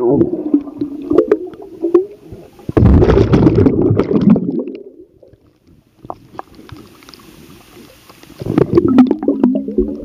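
Muffled underwater sound through a submerged camera: rushing and gurgling of bubbles as a swimmer moves through the water close by. It comes and goes in surges, loudest about three seconds in and rising again near the end.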